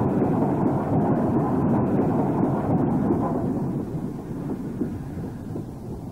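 Steam locomotive working on the railway: a dense rumbling noise, loudest for the first three seconds and then easing off.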